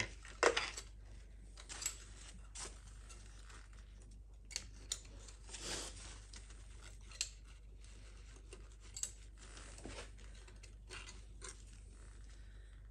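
Faint handling noises: a paper towel rustling and scattered light metal clicks as a big-end bearing shell is worked out of a connecting rod. A sharper click about half a second in is the loudest.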